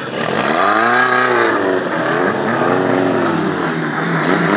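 A car engine revving hard in repeated swells, its pitch climbing and falling: once about a second in, again a couple of seconds later, and rising once more near the end.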